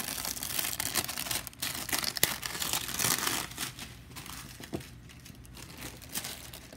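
Packaging crinkling and rustling as it is handled and pulled off, with many small crackles, busiest in the first few seconds and dying down after about four seconds.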